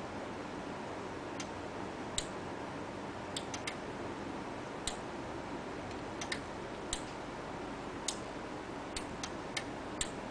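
Scattered sharp clicks, some in quick groups of two or three, from the voltage knob of an anodizing power supply being turned up, over a steady low hiss.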